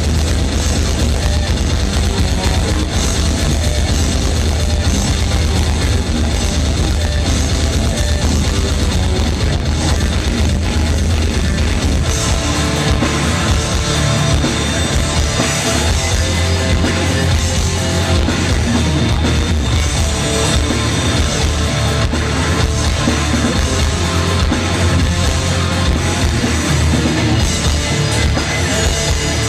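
Heavy metal band playing live and loud: distorted electric guitars over a drum kit.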